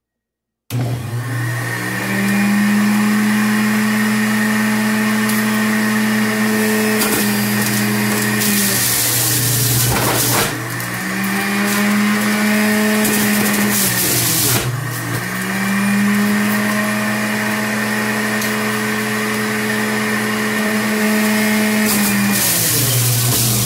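PowerXL Self-Cleaning Juicer switched on about a second in, its motor running with a steady whine as carrots are pushed down the chute and shredded. Its pitch dips three times, with bursts of grinding as the pusher forces carrots through.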